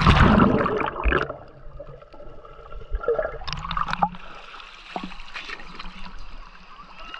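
Sea water sloshing and gurgling around a GoPro Hero 8 as it dips under the surface and comes back up. A loud rush of water comes in the first second, and a second splashing surge about three to four seconds in.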